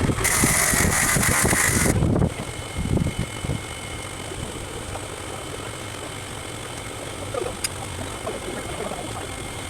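A loud, hissing mechanical noise lasts about two seconds, then stops. Under it and after it an engine runs steadily at idle.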